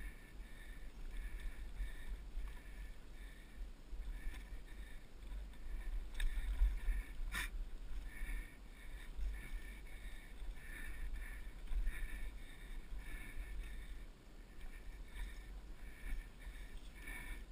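Wind rumble on a helmet-mounted GoPro Hero2's microphone while a mountain bike is ridden over a bumpy dirt pump track, with repeated short hissy puffs and a sharp knock about seven seconds in.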